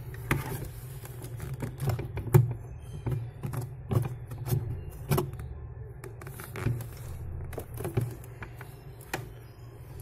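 Whirlpool refrigerator's freezer evaporator fan motor running with a steady low hum and irregular sharp clicking knocks, its fan blades catching on the ice built up around them. The ice is there because the freezer is not defrosting.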